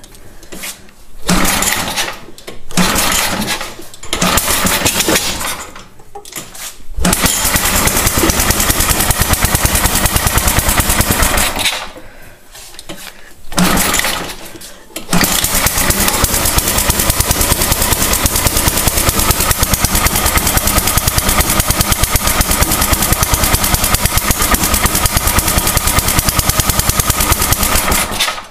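Hard-starting snowblower engine being cranked: three short attempts, then it catches and runs for about four seconds before dying. Another crank gets it running again, and it runs steadily until it cuts off suddenly near the end.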